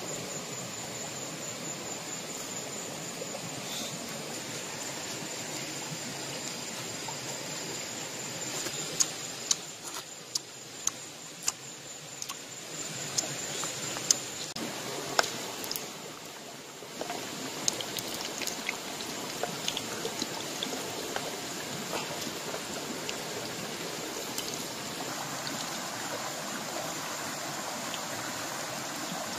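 River water running steadily over rocks. Through the middle stretch come a dozen or so sharp clicks and knocks.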